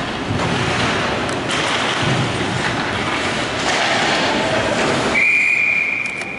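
Hockey referee's whistle blown once about five seconds in: one steady shrill note held for just over a second, stopping play. Before it, a steady din of crowd and rink noise.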